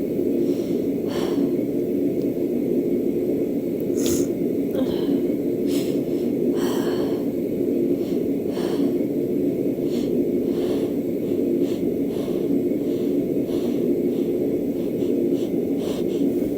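A woman with a cold sniffing and catching short, sharp hitching breaths, a second or two apart: false starts of a sneeze that doesn't come. Beneath them runs a steady low hum.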